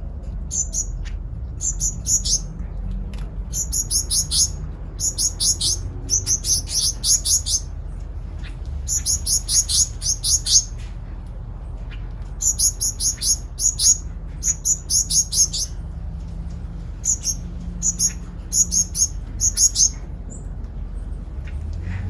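Small aviary birds chirping: quick runs of high, thin notes in bursts of about a second, repeated again and again, over a low steady background rumble.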